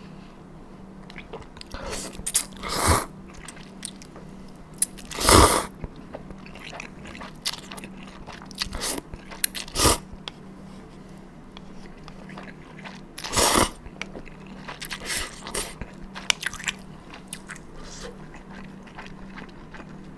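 A person eating close to the microphone: several short, loud slurps of cold buckwheat noodles and soup, the loudest about five seconds in, with wet chewing and smacking clicks between them.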